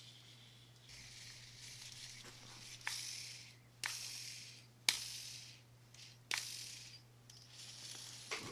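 Faint handling of a Shimano Curado K baitcasting reel: four sharp clicks over a few seconds, each followed by a short, fading whir, over a steady low hum.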